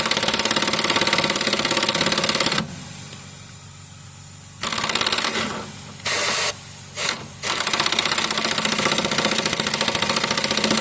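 Impact wrench hammering as it tightens an anti-roll bar link nut, in trigger bursts: a run of about two and a half seconds, a pause, a few short bursts, then a long steady run from about three quarters of the way in.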